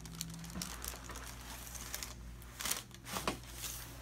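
Crinkling and rustling as a patient shifts position on a chiropractic treatment table, with two louder brief rustles about three seconds in, over a faint steady low hum.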